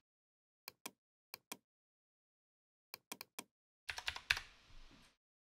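Faint computer mouse clicks, each a quick press-and-release pair, repeated several times, then a quick run of keystrokes on a computer keyboard about four seconds in as a value is typed into a software dialog.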